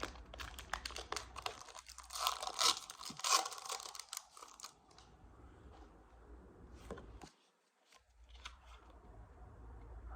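Foil wrapper of a Pokémon card booster pack being torn open and crinkled: dense tearing and crinkling for the first four or five seconds, then a few scattered lighter crinkles and clicks.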